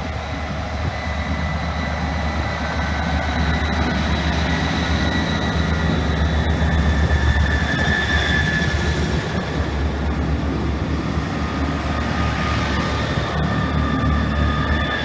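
Two coupled Class 158 diesel multiple units pulling out, their underfloor diesel engines running under power with a deep rumble and a steady high whine. The sound grows louder over the first half and then holds.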